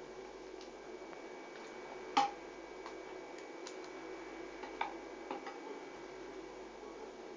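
A few light knocks and clinks as film-wrapped eggs go into a stainless steel saucepan of hot water and a metal spoon touches the pot, the loudest knock about two seconds in and smaller ones a few seconds later.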